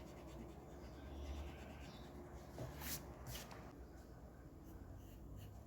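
Faint pencil and eraser work on paper, soft rubbing with two short scratches about three seconds in, over a low steady room hum.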